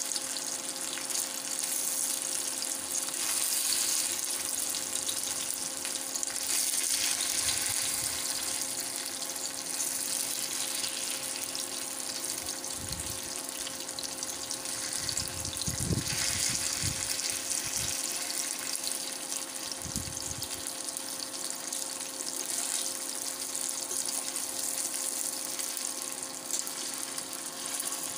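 Masala-coated whole fish shallow-frying in a little oil on a flat tawa, a steady sizzle over a faint steady hum from the induction cooktop. A few soft knocks partway through come as the fish are turned with a fork.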